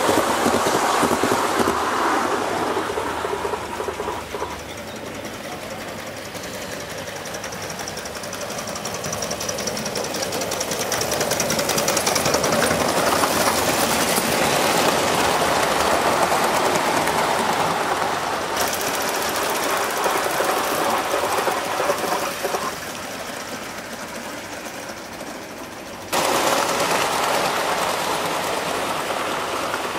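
Gauge 1 model trains running past on garden railway track: a fast, even mechanical clatter of wheels and running gear. It swells as a locomotive with its wagons goes by, and the sound changes abruptly twice in the last third.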